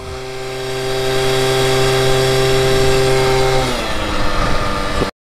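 Small 50cc two-stroke engine of a moped under way, running at steady high revs; near the end the revs drop as the throttle comes off, and the sound cuts off suddenly.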